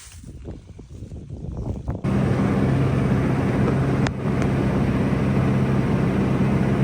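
Irregular low rustling and thumping, then about two seconds in an abrupt switch to a farm tractor running steadily under load, a loud even engine drone, with a single click midway.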